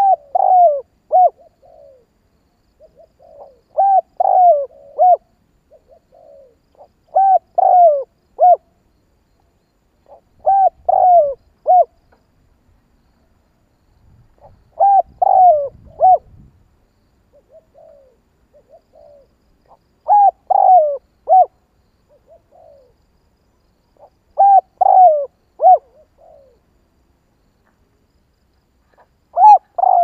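Spotted dove cooing: a short phrase of three or four notes, repeated about every three to four seconds, with a longer pause midway.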